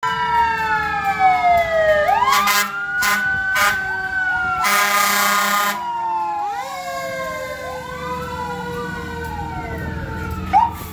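Several emergency-vehicle sirens from passing fire engines and an ambulance sound at once, their pitches rising and falling against each other. Short horn blasts come about three seconds in, followed by a longer blast of about a second near the middle.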